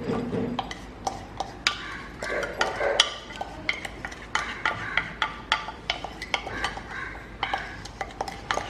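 A spoon stirring flour in a mixing bowl, with irregular clinks and scrapes against the bowl.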